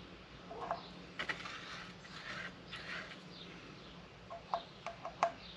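Faint scraping and light clicks of a stick spreading epoxy around the rim of a small plastic container, with a few sharper taps near the end.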